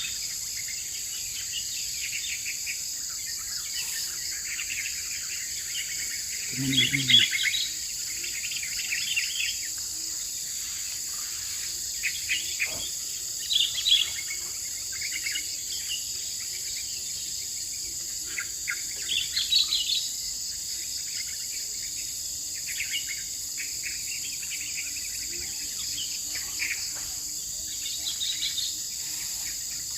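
Steady, high-pitched chorus of forest insects, crickets or cicadas, with scattered short bird chirps coming and going.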